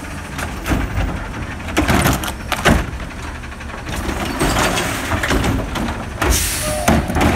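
Automated side-loader recycling truck running while its hydraulic arm grips, lifts and tips a wheeled plastic recycling cart over the hopper, with several sharp knocks from the arm and cart in the first three seconds and a rush of clatter as the cart is upended near the end.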